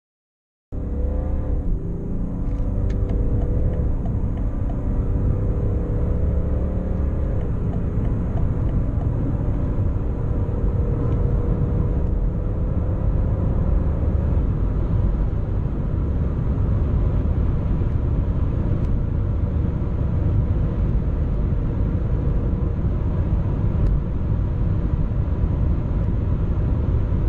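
A car accelerating hard at high speed, heard from inside the cabin: the engine note climbs slowly and drops back at gear changes a few times in the first eight seconds, over a steady low rumble of road and wind noise.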